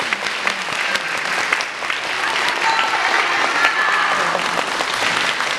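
Audience applauding steadily after the music has ended.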